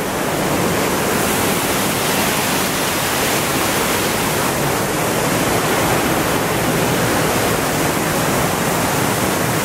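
Waterfall pouring down rock faces into a stream: a steady rush of falling water.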